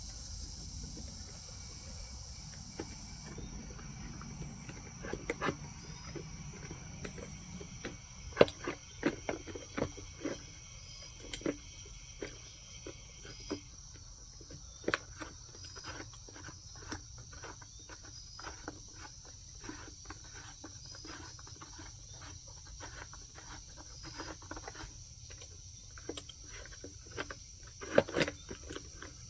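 Irregular clicks and knocks of an electric chainsaw's bar, chain and cover being handled and fitted together by hand, over a steady high-pitched insect drone.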